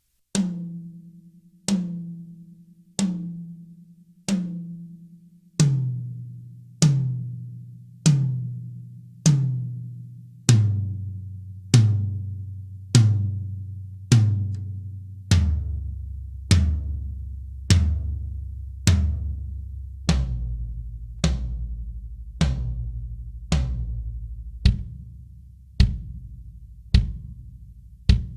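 Drums of a Yamaha Maple Custom maple-shell kit struck one at a time, a single hit every second or so, each left to ring out. The pitch steps down in stages, four hits on each higher drum, then a longer run of hits on the deepest drum.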